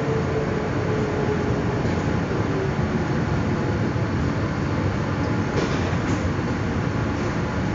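Inside an electric commuter train running at speed: a steady rumble of wheels on rails. A faint whine fades out about two seconds in, and a couple of light clicks come near the end.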